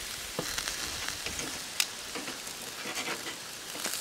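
Barbecue-sauced chicken thighs sizzling and crackling over the charcoal fire of a Weber kettle grill, with scattered small pops and one sharp click a little under two seconds in.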